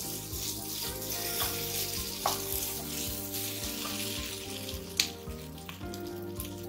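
Diced vegetables sizzling steadily in oil and spice paste in a nonstick wok, being sautéed briefly at medium heat. There are a few light knocks of a wooden spatula against the pan, the sharpest about five seconds in.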